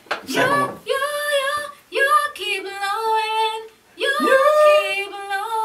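A woman singing two long phrases of held, wavering notes, recording a vocal take, with a short break about four seconds in.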